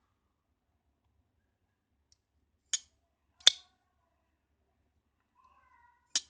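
Peter Rassenti Druid flipper knife being worked open and shut: three sharp clicks of the blade snapping into place. The second click, about halfway through, is the loudest and has a faint ring after it.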